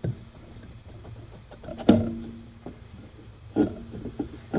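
Hand handling of an e-bike hub motor's cover plate as it is worked off the axle: a few sharp knocks, the loudest about two seconds in, followed by a brief pitched creak.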